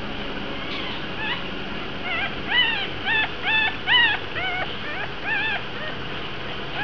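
Newborn puppies, about five days old, crying in a run of about ten short, high squeaks, each rising and falling in pitch. The squeaks start about a second in.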